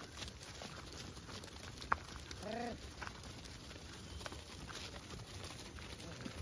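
A herd of goats walking past on a dirt track, hooves ticking faintly, with a single short goat bleat about two and a half seconds in. A sharp click comes just before the bleat.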